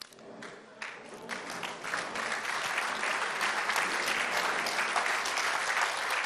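Audience applauding: a few scattered claps at first that swell within about two seconds into full, steady applause from a large seated crowd.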